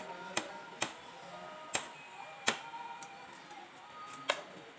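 Five sharp metallic clicks, irregularly spaced, from a socket wrench on a long extension working a bolt on a motorcycle engine. Background music plays underneath.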